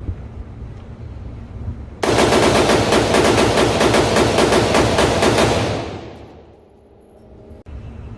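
A rapid string of shots from an AR-15-style gun, fired in quick succession. The string starts suddenly about two seconds in and fades out a little past the middle.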